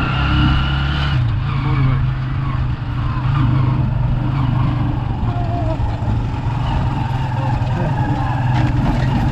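Motorcycle taxi's motorcycle engine running while riding, heard from inside the sidecar with road and wind noise. A higher whine rises slightly over the first second, then the engine runs on steadily.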